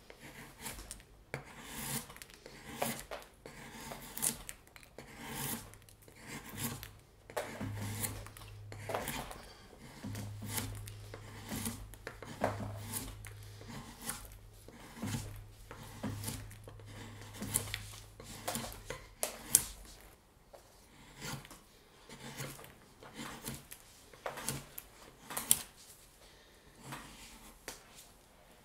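Hand carving tool shaving and cutting wood in repeated short strokes at an uneven pace.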